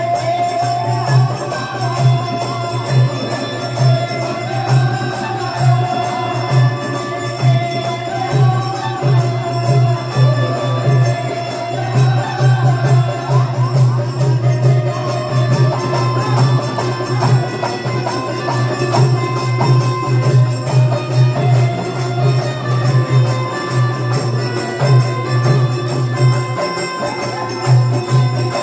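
Indian devotional folk music of a mata jagran: a steady, driving percussion beat with a melody line over it.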